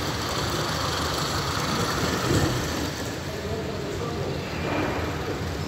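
Live-steam model locomotive, a Roundhouse double Fairlie, running on its garden-railway track. It makes a steady mechanical and steam noise, blurred by heavy echo.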